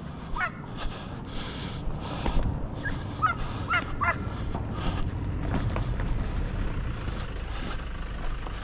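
Hunting dog yelping and whining in short high, wavering cries: one near the start, then a cluster of three or four about three to four seconds in. Underneath are scattered crunching clicks of steps on gravel and a low rumble.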